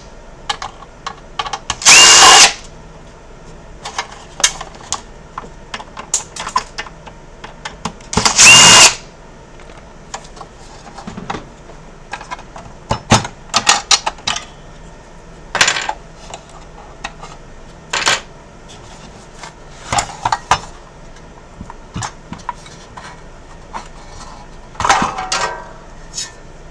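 Electric screwdriver spinning out screws in two short, loud whirring bursts, followed by scattered clicks, taps and a brief rattle of small screws and parts being handled.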